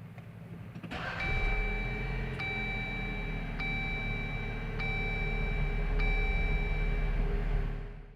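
Jeep Wrangler's 2.0 turbo four-cylinder engine starting about a second in and settling into an idle, while an in-car warning chime repeats about once every 1.2 seconds. It fades out near the end.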